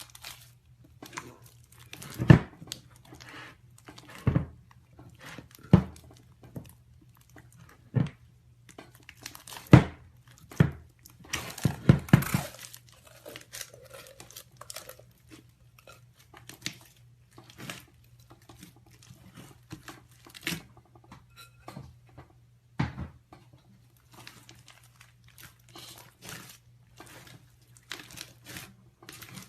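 Slime being squeezed and worked by hand, giving irregular crackling pops and snaps, with a dense run of crackles about eleven to twelve seconds in. A faint steady low hum sits underneath.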